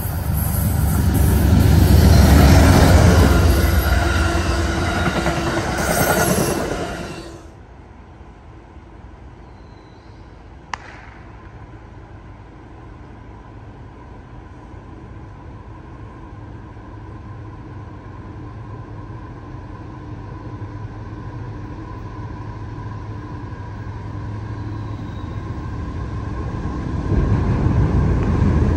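A train passing close by with a loud rumble, which cuts off abruptly about seven seconds in. Then comes a quiet stretch with a faint steady tone and one sharp click, before a second train's rumble builds near the end as it approaches.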